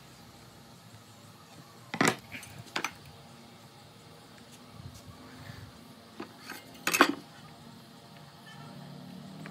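Aluminium speed square and pine boards being set down and shifted on a worktable: a few sharp knocks and metallic clinks, two about two seconds in and the loudest about seven seconds in.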